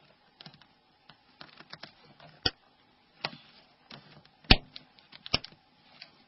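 Small plastic phone parts clicking and tapping as they are handled and snapped together, with about a dozen separate clicks; the loudest comes a little past halfway.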